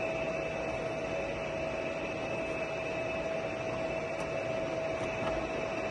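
Heavy Giana lathe running with the carriage on power longitudinal feed and the lead screw turning: a steady mechanical hum with a constant whine.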